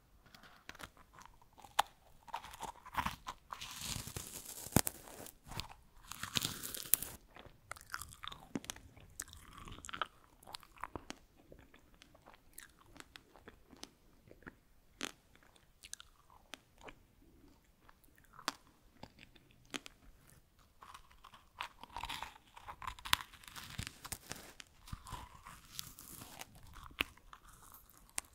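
Freeze-dried strawberries being bitten and chewed close to the microphone: dry, brittle crunching with many sharp crackles, heaviest in two spells, a few seconds in and again about three-quarters of the way through.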